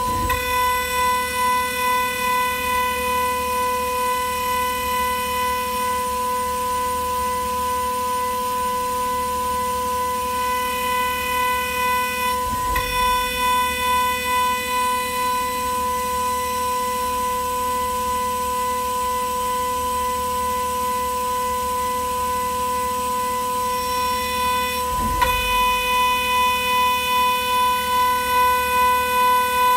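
High-speed milling spindle of a CNC jewelry ring-milling machine whining at one steady pitch while a fine end mill cuts the sides of a ring. The whine pulses in level as the cutter bites, and breaks off briefly twice, about 12 and 25 seconds in.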